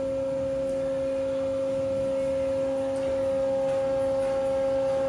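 Hydraulic power unit of an automated honing machine whining steadily while the stroker drives the honing head forward through the barrel. A second, higher tone joins about halfway through as the sound grows slightly louder.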